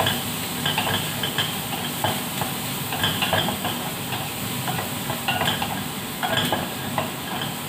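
Chopped onions and garlic sizzling in melted butter in a frying pan while a spatula stirs them, with repeated short scrapes and taps of the spatula against the pan.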